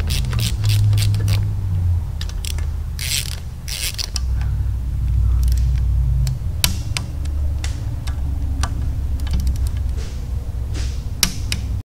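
Hand tools fastening the screws of a chrome cam cover on an engine case: a screwdriver and then a socket ratchet, giving scattered metal clicks, ratchet clicking and a few short scrapes, over a steady low hum.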